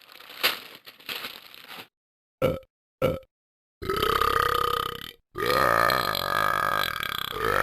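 A series of loud burps: a fading one at the start, two short burps at about two and a half and three seconds, then two long, drawn-out burps held on a steady pitch, with dead silence between them.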